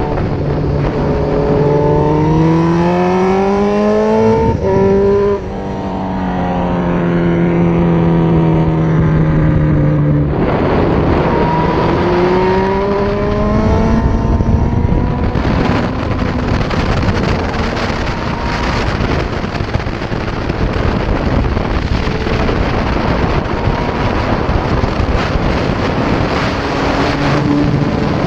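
Suzuki GSX-R1000 K6 inline-four engine heard from the rider's helmet. It rises in pitch under acceleration, falls for several seconds as it slows, and rises again. After that, wind rush on the helmet-mounted camera mostly drowns the engine until it comes back through near the end.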